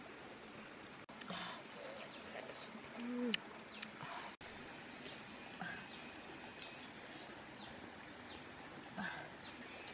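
A person eating cooked oysters with her fingers: slurping and chewing with a short murmur a few seconds in, and a few sharp clicks, the loudest just after that murmur, over a steady background hiss.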